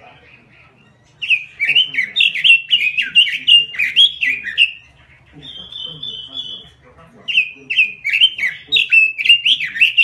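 Caged Pekin robin (red-billed leiothrix) singing in full voice, starting about a second in. It gives two long runs of fast, warbling, slurred notes with a single held note between them.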